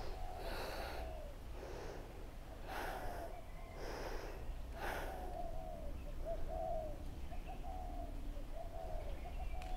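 A person breathing audibly into a body-worn microphone, several deep breaths in the first five seconds, then a bird calling in a run of short repeated notes.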